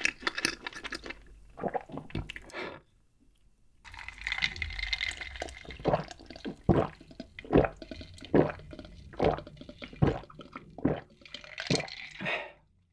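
Close-miked mukbang eating sounds: chewing, a short pause, then wet mouth sounds with a strong stroke just under once a second, which stop just before the end.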